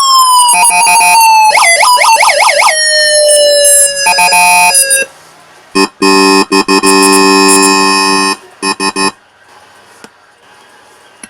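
Homemade PIC-programmed electronic police siren sounding through its patterns: a sweeping wail, quick up-and-down yelps, then a slowly falling tone, followed by a harsh steady horn-like buzz. It cuts off about nine seconds in.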